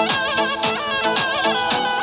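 Background music: a wavering melody over a fast, steady drum beat, in a folk style.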